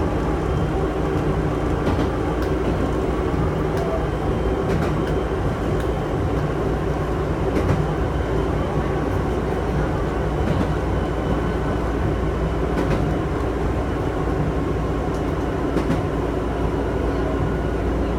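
Chichibu Railway electric train running along the line, heard from inside the front car: a steady running hum with occasional sharp clicks from the wheels on the track.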